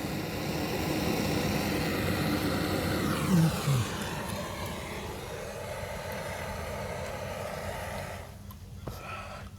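A plumber's torch flame hissing steadily while heating a copper pipe joint for soldering. It drops away about eight seconds in, leaving a few faint clicks.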